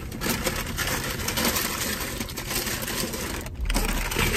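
Paper food wrapper crinkling and rustling in the hand, a dense crackle lasting about three seconds, followed near the end by a short low bump.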